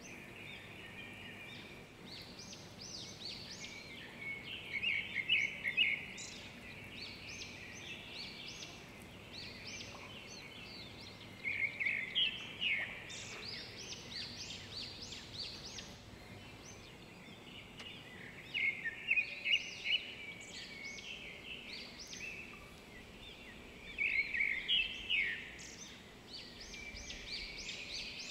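A bird singing: four phrases of quick high notes, each about a second and a half long and six or seven seconds apart, over a faint steady background hiss.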